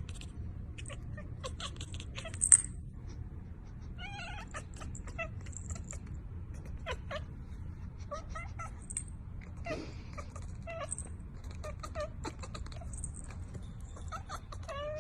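Domestic cat meowing and caterwauling over and over in short calls, over a steady low hum, with one brief loud sound about two and a half seconds in.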